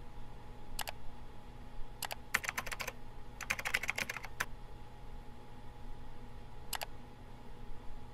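Computer keyboard keys clicking in two quick runs of typing, with a few single clicks before and after.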